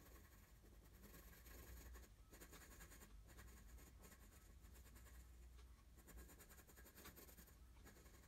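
Faint scratching of a graphite pencil on drawing paper in short, irregular shading strokes, over a low steady hum.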